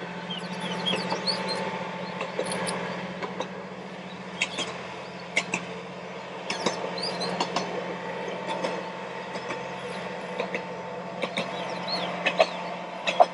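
Steady low engine hum of a single-car diesel railcar passing at a distance, with small birds chirping in short, scattered calls.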